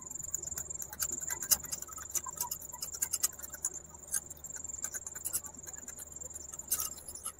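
Small spoon beating a raw egg in a miniature terracotta bowl: rapid, irregular clicks and scrapes of the spoon against the clay.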